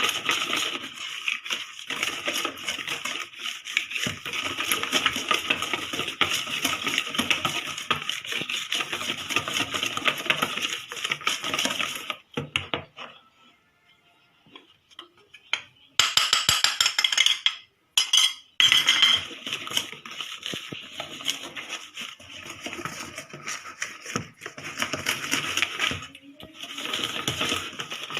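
Hand whisk rapidly clattering and scraping against a mixing bowl as cake batter is beaten, with flour being added little by little. The whisking stops for a few seconds about halfway through, then resumes after a short louder burst.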